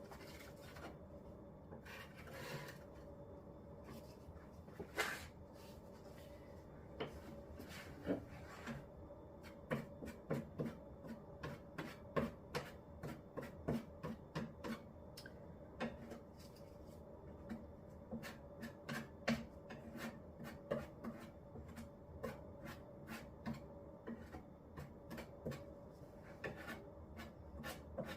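A tool scraping through wet Henry Feather Finish cement, in short irregular strokes, sparse at first and coming thick and fast from about a third of the way in.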